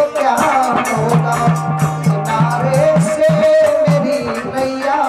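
Live Hindi devotional song: a male voice singing over long held instrumental notes, a hand drum and a rattling shaker-like percussion in a steady rhythm.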